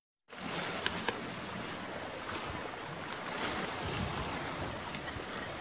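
Steady rushing outdoor noise of wind and sea waves, after a short gap of silence at the very start.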